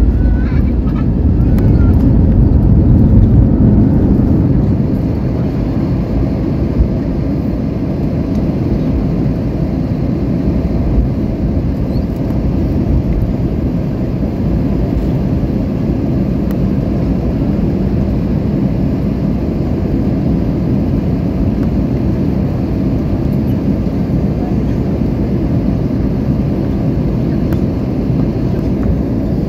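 Airliner cabin noise: the steady low rumble of the jet's engines and airflow heard from inside the passenger cabin, a little louder in the first few seconds.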